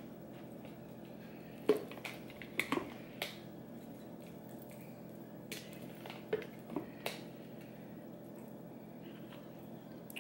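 Metal utensil clinking and tapping against a salsa jar as salsa is scooped out: a handful of sharp, scattered clicks, the loudest about two seconds in, over a faint steady hum.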